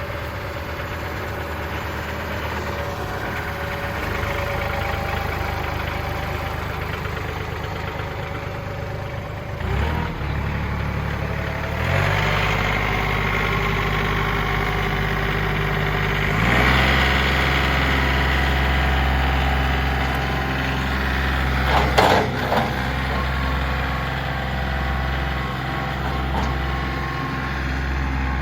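John Deere 2032R compact tractor's three-cylinder diesel engine running, its speed stepping up in stages through the first half. A sharp knock comes about two-thirds of the way through.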